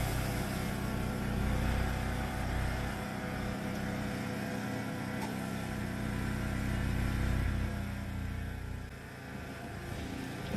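Yamaha YT1070 snowblower's engine running steadily, its note dipping briefly about nine seconds in.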